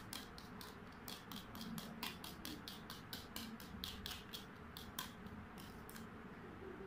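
Hand-held spring whisk beating a foamy egg batter in a metal bowl. It makes rapid, faint rhythmic clicks, about five a second, that thin out near the end.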